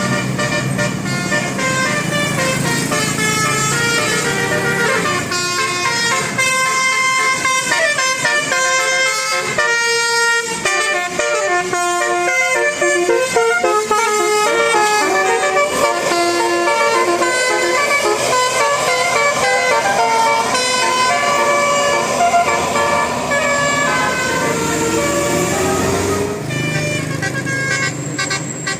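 Bus 'telolet basuri' musical air horn playing a fast tune of quickly changing notes, over the low running of the bus engine.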